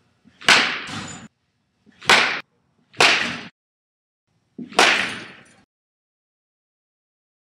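Baseball bat striking pitched balls four times, each a sharp crack that trails off over about half a second.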